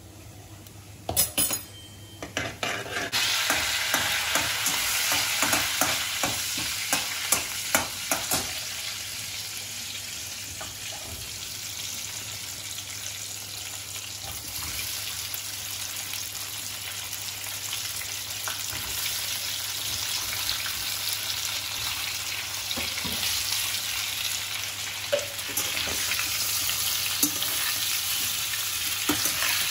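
Hot oil sizzling in a frying pan as sliced, boiled fara (stuffed wheat-dough dumplings) and cumin seeds fry, with a steel spatula clicking and scraping against the pan as they are stirred. The pan is quiet for the first few seconds, then the sizzle starts suddenly about three seconds in.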